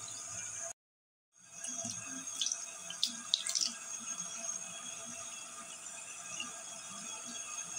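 Tap water running steadily into a sink, cut off completely for about half a second a little under a second in, with a few light clicks and knocks around two to three and a half seconds in.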